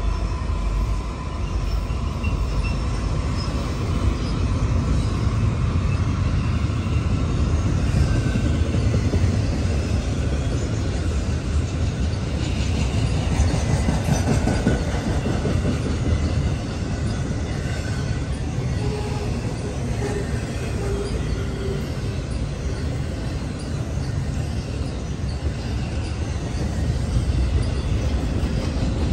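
Norfolk Southern intermodal freight train passing: the last diesel locomotive's engine fades in the first couple of seconds, then trailer- and container-laden cars roll by with a steady rumble of wheels on rail and a few faint wheel squeals.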